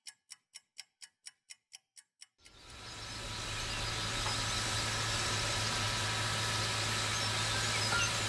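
A run of soft even ticks, about four a second, for the first two seconds, then a steady hiss with a low hum fades in and holds: an H0 model steam locomotive and its passenger train running along the layout track.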